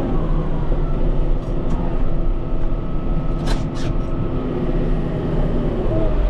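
Kubota M5-91 tractor's diesel engine running steadily while pushing snow, with two brief sharp ticks about three and a half seconds in.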